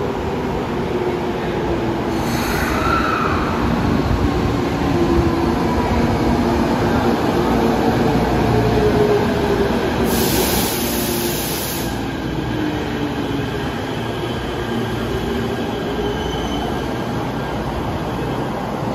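Tokyo Metro 05 series subway train running into the station and braking to a stop, its motor whine falling slowly in pitch as it slows. A two-second hiss comes about ten seconds in.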